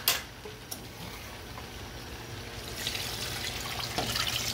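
Beef stock poured from a glass measuring cup into a pot of short ribs, a splashing pour that swells in about three seconds in. A brief knock comes at the very start.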